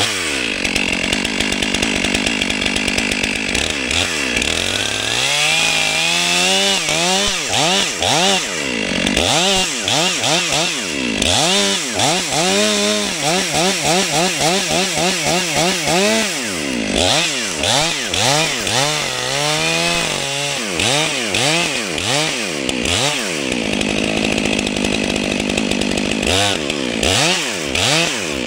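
Two-stroke chainsaw running at full throttle while cutting into a standing tree's trunk. Its engine note dips and recovers over and over, about twice a second, from about four seconds in until near the end, where it steadies again.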